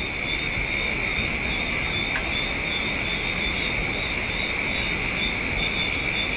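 A chorus of insects, crickets by the sound of it, trilling in a steady, continuous high pitch over a faint low hiss.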